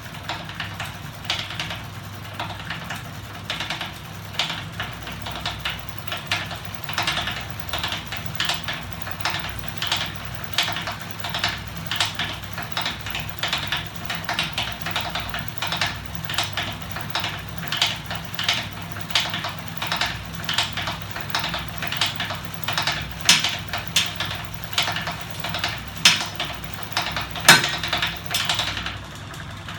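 A home-built magnet-and-linkage machine running on electric motors: a steady low motor hum under a continuous, uneven run of metallic clicks and ticks from its linkages and bike ratchet, with one louder knock near the end.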